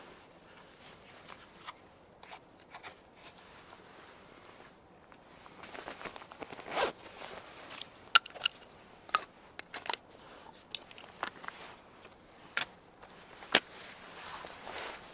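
Knife, sheath and folding saw being handled: faint scraping and rustling, a louder swish about seven seconds in, then a string of sharp clicks and knocks.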